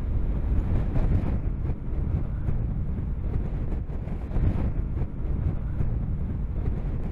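Solid-fuel rocket motor of a submarine-launched ballistic missile in flight, heard from far below as a steady low rumble with some crackle, mixed with wind on the microphone.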